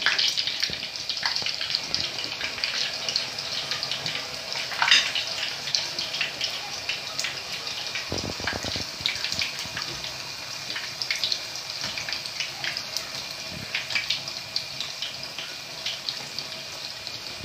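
Mushabbak batter frying in hot oil in a small frying pan: a steady sizzle with crackles and pops that eases off gradually. A sharp pop or click about five seconds in is the loudest moment.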